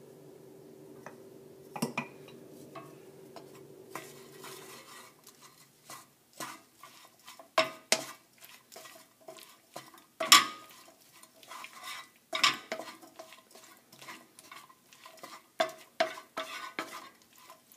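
Wooden spatula stirring pasta and beans around a frying pan, in irregular scrapes and knocks against the pan, the loudest about ten seconds in. A faint low hum runs under the first four seconds or so.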